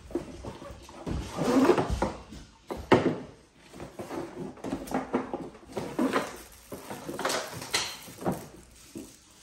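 Rummaging in a cardboard box of toy play food: rustling cardboard and scattered knocks and clicks of the items being handled, the loudest knock about three seconds in.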